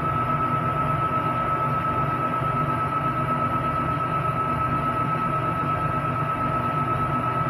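MacGregor 40-ton ship's deck crane running, heard inside the operator's cab: a steady machinery hum with a high, even whine, while it holds a hanging container over a truck trailer.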